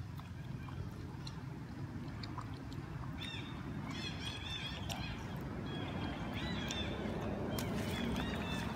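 Short high chirping calls in quick runs of several, starting about three seconds in, over a steady low rumble.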